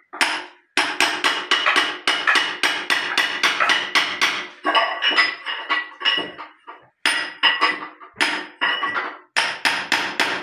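Hammer blows on a steel chisel, chipping hardened cement out of the trap of a ceramic Indian squat toilet, where the set cement is blocking the drain. Sharp ringing metal strikes come about four a second in runs, with a few short pauses.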